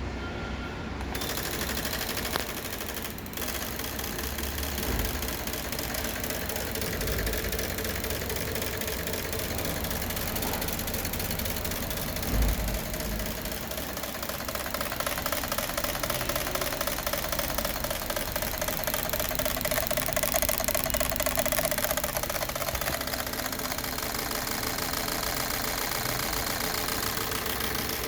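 Rover 216 car engine running steadily at idle on its repaired engine control unit, with a brief low thump about twelve seconds in.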